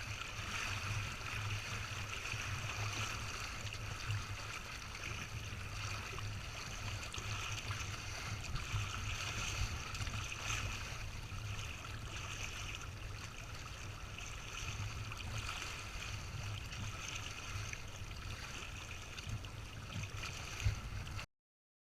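Water rushing and gurgling along the hulls of a Windrider 17 trimaran under sail, with a steady low rumble of wind on the microphone. It cuts off suddenly near the end.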